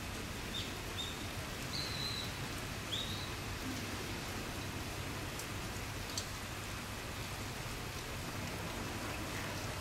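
Steady rain falling. A few short, high chirps from a small bird come in the first three seconds.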